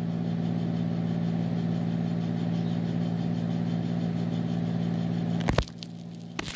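A steady low machine hum, like an idling motor, that cuts off abruptly with a knock about five and a half seconds in, followed by a few light handling clicks.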